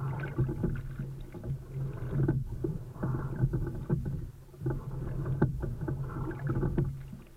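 Single sculling shell under way, heard from a camera on its deck: water rushing along the hull and the oars working, swelling and easing with each stroke about every two to three seconds, with sharp knocks scattered through it and a steady low hum underneath.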